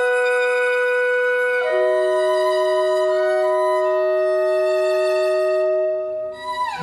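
Instrumental background music: soft held chords that change about two seconds in, thinning near the end with a quick falling run of notes.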